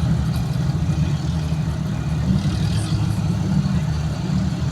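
Off-road vehicle engine running steadily at low revs, a low, even rumble.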